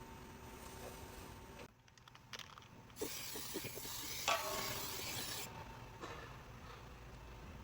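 Steady hiss for about two and a half seconds, starting about three seconds in and cutting off sharply, after a few light knocks.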